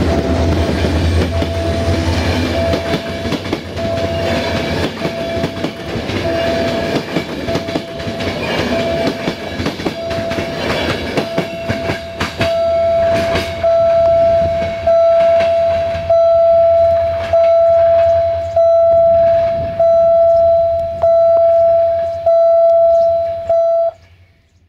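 Passenger coaches rolling past with wheel clatter over the rail joints and a low rumble, then moving away. Through it a steady electronic warning beep repeats about once every 1.2 seconds. It is faint at first, becomes loud and clear once the train has gone by after about thirteen seconds, and stops near the end.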